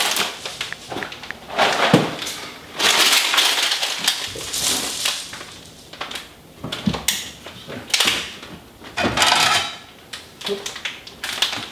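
Plastic snack packets crinkling and rustling as they are handled, in irregular bursts.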